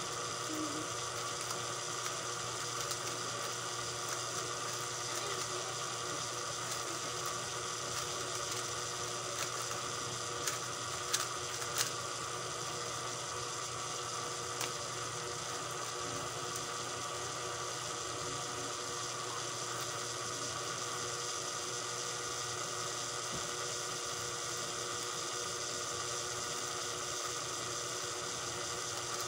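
A steady electrical hum made of many constant tones, with a few short sharp clicks a little after ten seconds in and one more near fifteen seconds.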